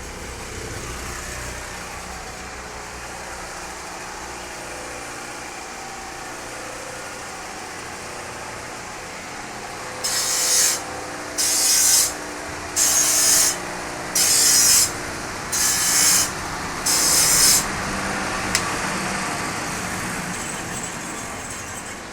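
A knife blade ground against the wet stone of a horizontal grinding wheel: a steady rasp, then six loud rasping strokes in a row, about one a second, about halfway through.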